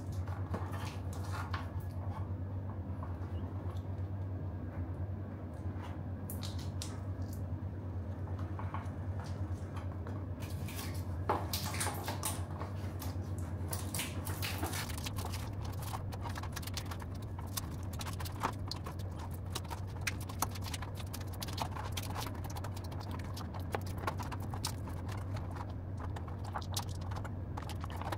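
Handling noises of a tubular tyre being worked onto a carbon rim lined with gluing tape: scattered rubbing, scuffing and small clicks, with the crinkle of the tape's plastic backing. These grow busier about a third of the way in, over a steady low hum.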